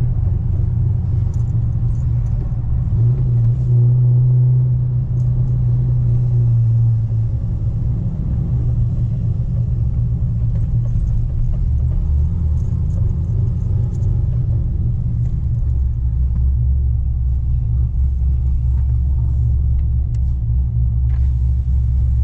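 2010 Camaro SS's 6.2-litre V8 droning inside the cabin while driving. The engine note is strongest a few seconds in, then settles to a deeper, lower-revving drone from about halfway through.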